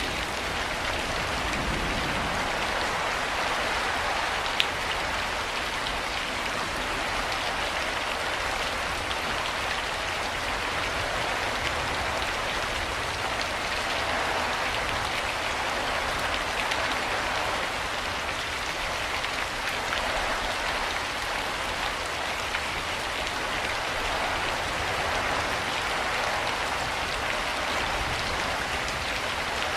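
Steady rain falling, an even hiss with a few sharper drop ticks, one about four and a half seconds in.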